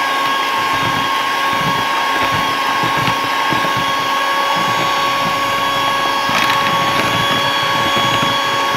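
Electric hand mixer running steadily at high speed, its beaters whipping eggs and sugar in a bowl until pale and thick, with a steady motor whine.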